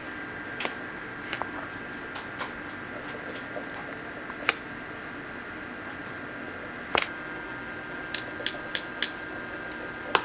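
Light metallic clicks and taps of a metal spoon against an aluminium tray as green powder is spooned over a candy apple. The clicks come singly and irregularly, the sharpest about seven seconds in, then four quick taps near the end, over a steady machine hum.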